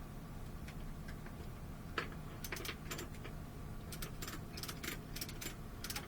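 Steady low engine hum under a run of irregular sharp clicks and ticks, starting with a single click about two seconds in and coming thick and fast from about two and a half seconds on.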